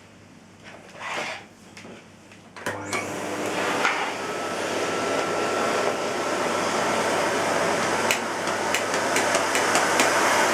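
Miele S256i canister vacuum cleaner switched on with a sharp click nearly three seconds in, its motor spinning up to a loud steady rush with a faint whine that keeps slowly building. A few light knocks come before it, and a few sharp ticks near the end.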